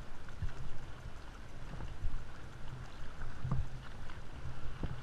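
Sea water sloshing and splashing around a camera at the water's surface, muffled, with irregular dull thuds as waves and swimming strokes hit it.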